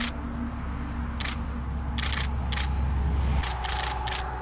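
Camera shutter clicks: several sharp clicks at irregular intervals, about six in all, some in quick pairs, over a low steady rumble.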